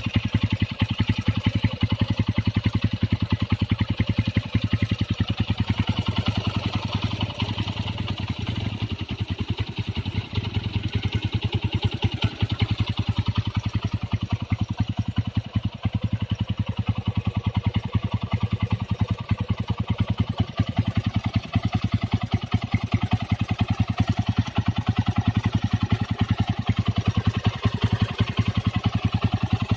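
Modified Honda GL Pro motorcycle's single-cylinder four-stroke engine idling steadily as it warms up, a fast, even run of exhaust pulses.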